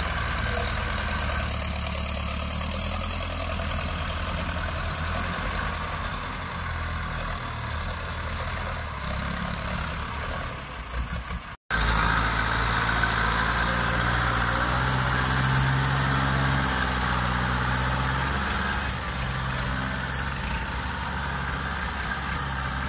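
Ford 6610 and 6600 tractors' diesel engines running steadily under load with loud exhausts while working the soil. There is a brief break about halfway through, after which the drone comes back louder.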